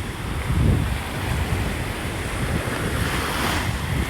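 Ocean waves washing on the shore, with wind buffeting the phone's microphone; the surf hiss swells briefly about three seconds in.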